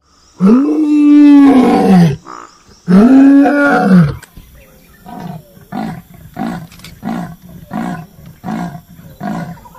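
A tiger roaring twice, each roar a long loud call that rises and then falls in pitch. Then comes a run of about seven short, rhythmic grunts, roughly one every 0.7 seconds.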